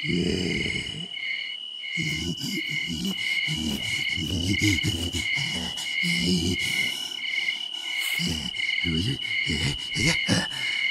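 Night-time cricket ambience: a steady high insect trill with a cricket chirping in even pulses about one and a half times a second, over a run of low, rough, uneven sounds.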